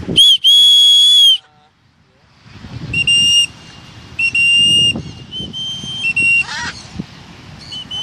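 A whistle blown in loud, steady-pitched blasts: one long blast near the start, then a string of shorter ones, some in quick succession.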